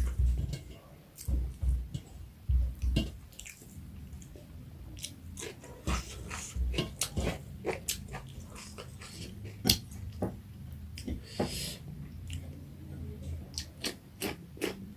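Close-miked chewing and mouth sounds of a person eating a meal: irregular wet smacks and clicks, with a few dull low thumps in the first three seconds.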